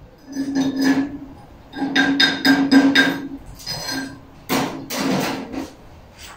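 Chipping hammer striking a steel plate and weld bead in clusters of quick blows, the metal ringing with each hit, as slag is knocked off a freshly laid arc-weld bead.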